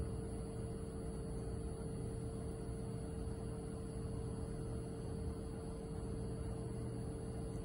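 Steady low rumble with a constant mid-pitched hum, unchanging throughout, with no distinct clicks or knocks.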